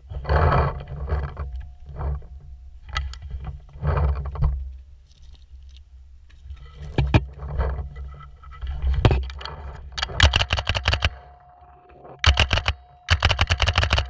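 Paintball marker firing in rapid strings, three fast bursts of sharp pops in the last four seconds. Before them come scuffing and bumping noises with a few single sharp pops.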